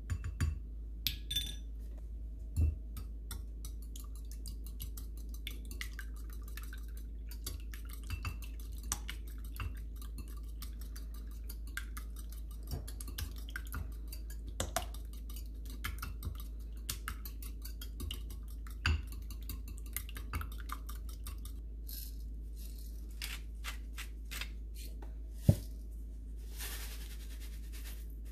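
Wire whisk beating eggs and cream in a ceramic bowl: rapid small clicks and scrapes of the wires against the bowl, with a few louder clinks. Near the end comes one sharp knock, then a short shaking rush as pepper is shaken onto the eggs, all over a steady low hum.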